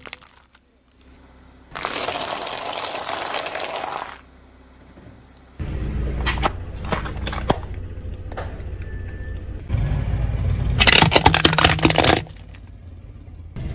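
A car tyre rolling slowly over plastic objects and crushing them: a toy egg, then a row of sealed plastic cups, then a plastic toy. The tyre rumbles on the pavement under a run of sharp cracks and crackling as the plastic gives way, densest near the end.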